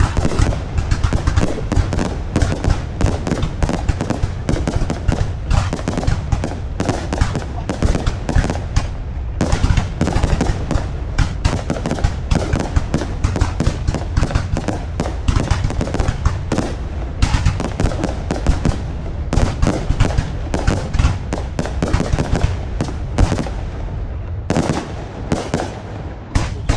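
Fireworks display: a dense, continuous barrage of bangs and crackles from bursting shells, thinning a little near the end.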